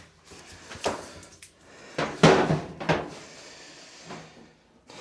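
A few knocks and clunks of the clothes dryer's power cord being unplugged and handled, the loudest a little over two seconds in.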